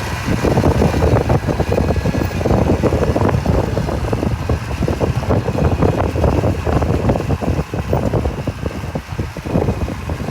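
Mitsubishi BD2F bulldozer's diesel engine running under work, a loud, rough, uneven mechanical noise.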